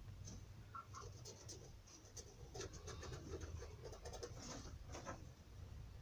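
Faint scratching and scraping with scattered light clicks, as of hand tools working on a shoe.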